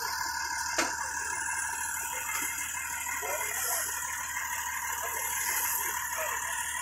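Parked fire engine running steadily, a constant mechanical hum, with faint voices in the background and one click about a second in.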